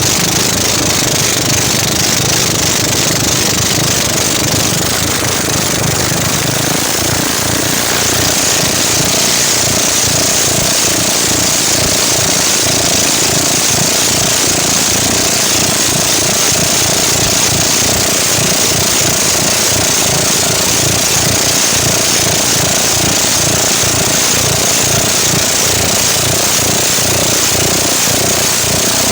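Automatic scooter with a stock engine and a racing CVT drive face, running steadily at speed with a rapid low pulsing and a hiss. A steady whine comes in about eight seconds in and holds.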